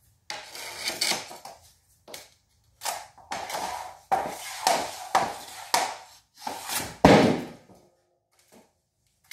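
Hockey shooting practice: a stick blade clacking and scraping on a shooting pad and pucks being struck, a string of sharp hits and scrapes with the loudest about seven seconds in.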